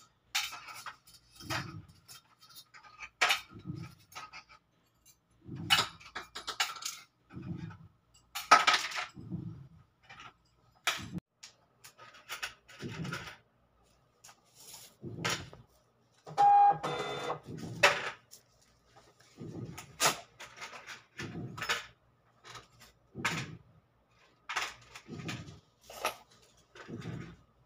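Small gold bangles clinking and rattling against one another as they are handled, in short irregular bursts of clicks with dull knocks from fingers and handling.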